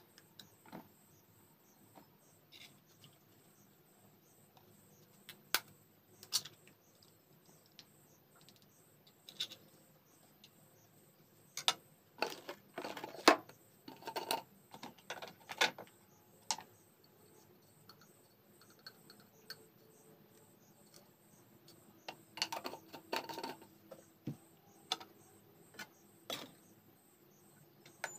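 Sharp clinks and taps of utensils on a steel tumbler as eggs are cracked into it and beaten with a knife, scattered singly at first and coming in quick runs about halfway through and again near the end.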